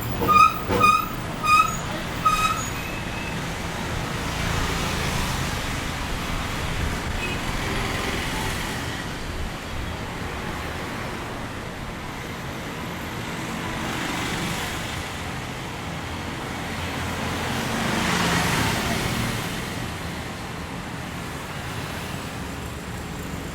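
Indian road traffic: a vehicle horn toots four times in quick succession at the start, then a steady traffic hum with several vehicles passing by. The loudest pass comes about eighteen seconds in.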